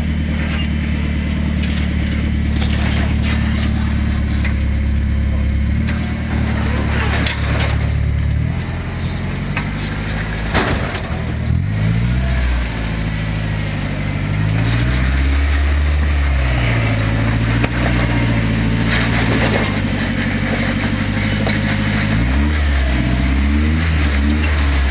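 A Toyota 4x4's engine running at a steady low speed, then revving up and falling back several times over the second half. A few sharp knocks are heard about a third of the way in.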